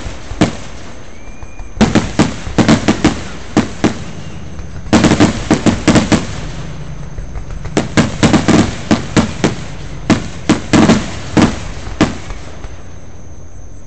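Aerial fireworks going off in quick runs of sharp bangs, several a second. There are about five runs, separated by pauses of a second or so.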